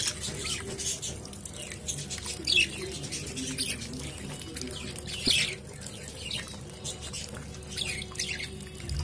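A group of budgerigars chirping: many short, quick calls one after another, with two louder calls about two and a half and five seconds in.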